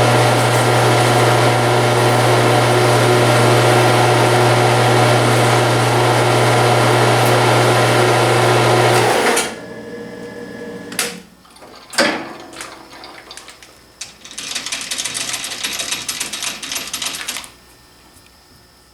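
A motor-driven shop machine runs steadily with a low hum, then is switched off about nine seconds in. Metal clinks and a sharp knock follow, then a few seconds of fast rattling.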